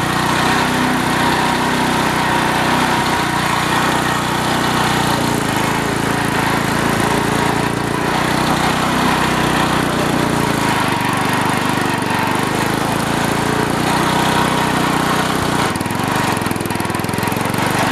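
Small garden tractor's engine running steadily while the tractor is being driven, loud and close.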